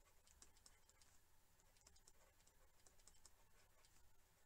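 Very faint, irregular ticking and tapping of a stylus writing on a tablet, several light taps a second, over near silence.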